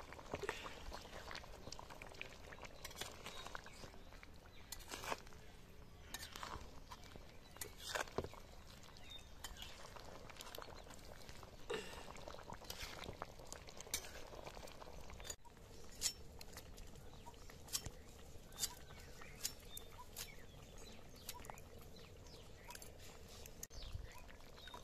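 A metal spatula stirring a simmering fish curry in a steel kadai: scattered light clicks and scrapes against the pan over a faint bubbling hiss.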